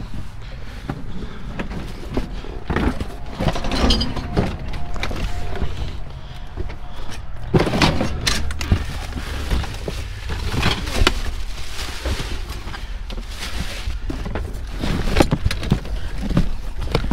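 Boxes, plastic items and other junk being shifted and rummaged through by hand: irregular knocks, thuds, scraping and rustling, over rumbling handling noise on the microphone.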